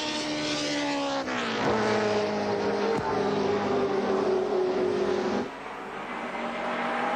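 Group A Holden VL Commodore race car's V8 running at speed: the engine note falls over the first second or so, then holds steady at low revs. The driver is using minimum throttle and dropped revs to save fuel. The sound quietens suddenly about five seconds in.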